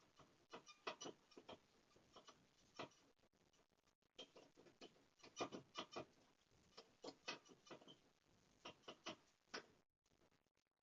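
Faint, irregular clicking and knocking, sometimes in quick clusters: loose objects and fittings rattling as an earthquake shakes the building.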